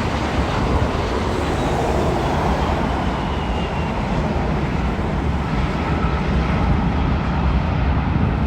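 Jet airliner passing close by, a steady low engine rumble with a faint high whine that slowly falls in pitch.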